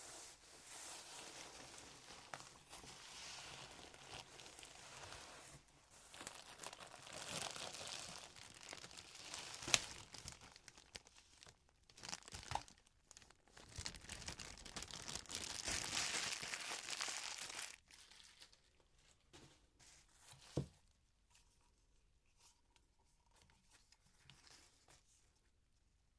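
Packaging being unwrapped by hand: crinkling and tearing that comes and goes, loudest about two-thirds through, with a few sharp clicks. The last several seconds hold only quieter handling.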